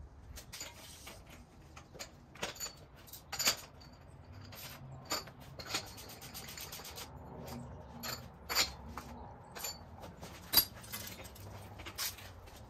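Scattered metal clinks and knocks from a BMX bike being handled during a tune-up: its wheel and chain moved by hand, the sharpest knock about ten seconds in.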